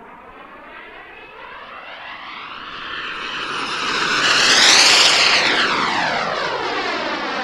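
Jet Central Mammoth model jet turbine powering a radio-controlled Xtreme A.R.F. Vixen on a fast low pass: a steady turbine whine and rush that swells to its loudest about five seconds in as the jet goes by, with a sweeping, shifting tone, then fades a little.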